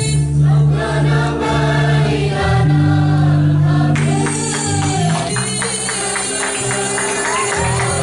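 A girls' choir singing a slow song with sustained low accompaniment under the voices. About halfway through, a steady percussion beat joins in.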